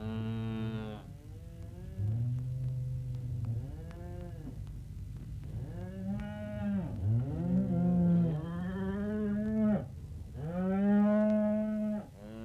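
Cattle mooing: a string of long moos one after another, some overlapping, as from a herd.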